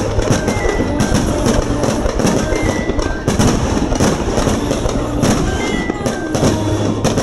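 Fireworks bursting in sharp bangs at irregular intervals, mixed with music playing with a steady low tone and drum-like hits.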